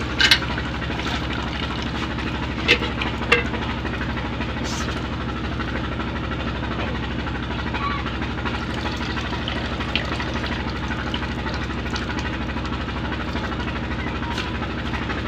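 Peter diesel engine running steadily, a low even hum, while it pumps water. A few sharp clinks of steel cookware in the first few seconds.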